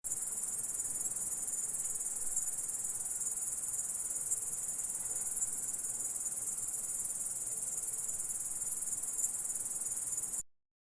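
Grasshopper stridulating: one continuous, high-pitched insect trill with no breaks, cutting off suddenly near the end.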